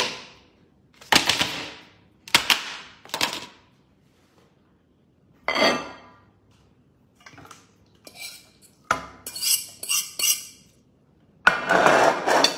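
Plates, a fork and a pot clattering and clinking in a series of short, separate knocks, with quick bright clinks about three quarters of the way in and a longer clatter near the end.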